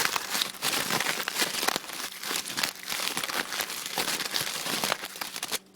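Aluminium foil crinkling and crumpling, a dense run of sharp crackles that stops suddenly just before the end.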